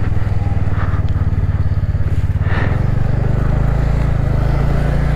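Motorcycle engine running steadily under way, a low drone with a noisy haze over it.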